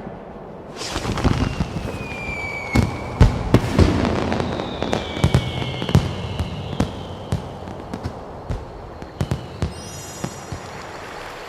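Fireworks going off: a string of sharp bangs with whistling shells gliding down in pitch, thinning out to scattered crackles near the end.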